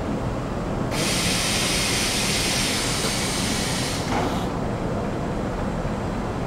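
Steady hiss of gas or compressed air from an automatic CO2 round-welding machine. It starts sharply about a second in and cuts off about three seconds later, over a steady low machine hum.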